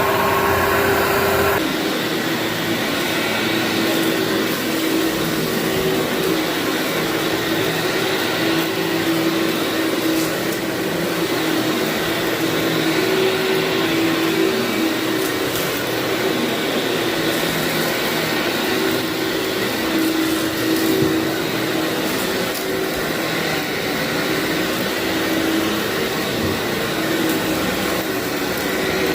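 Vacuum cleaner running steadily over a dirty carpet, its motor hum wavering as it is pushed back and forth, with the crunch of grit being sucked up from the carpet pile.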